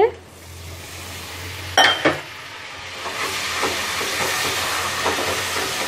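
Water poured into a hot kadhai of oil-fried onion and spice masala, hissing and sizzling, with a brief clink about two seconds in. The sizzle then grows louder and steadies as the masala is stirred with a wooden spatula.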